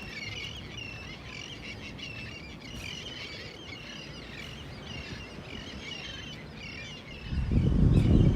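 Birds chirping steadily, many short rapid calls overlapping. A loud low rumble comes in about seven seconds in and drowns them out near the end.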